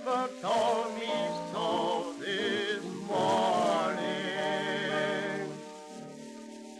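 Vocal duet with piano from a 1929 78 rpm record singing the song's closing phrase. They end on a long held note with heavy vibrato that dies away about five to six seconds in, over faint record hiss.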